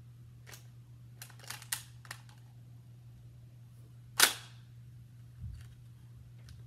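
Nerf blaster handled with a few quick clicks, then fired with one sharp pop about four seconds in, followed a second later by a soft thump.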